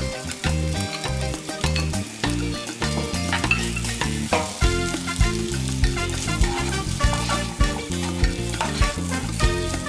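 Egg fried rice sizzling in a nonstick frying pan as it is stirred and tossed, with a wooden spoon and then a slotted spatula scraping and tapping the pan. Background music plays underneath, and its beat comes in about halfway.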